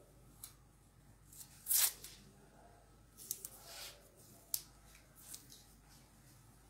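Scattered short rustles and soft ticks of lace and fabric being handled, about half a dozen, the loudest a little under two seconds in.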